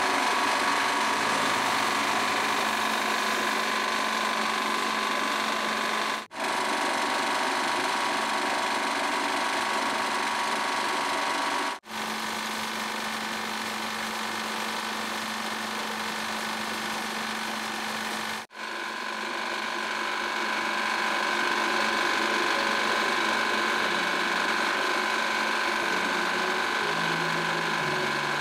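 Small rice milling machine running steadily while it mills black rice, the grains pouring out of its metal chute. The noise breaks off for a moment three times.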